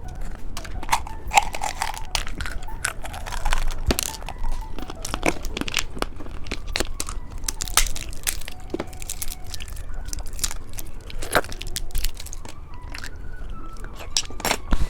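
Close-up eating of candy snacks: irregular crisp crunching and biting, with crinkling that may be wrapper handling mixed in.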